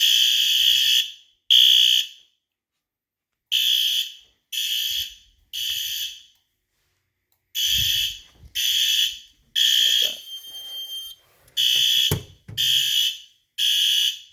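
Fire alarm horns sounding loud, harsh blasts in groups of three with a longer pause between groups: the temporal-three evacuation pattern of an activated fire alarm system.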